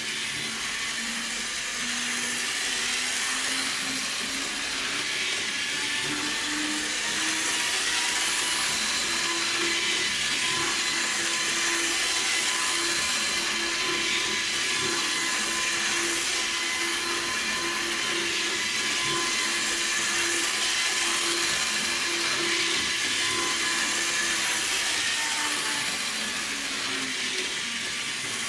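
Small electric motor of an HO-scale model train locomotive running on its track, with a steady whine and wheel hiss. The whine rises in pitch over the first several seconds as the train speeds up, holds steady, then drops again near the end as it slows.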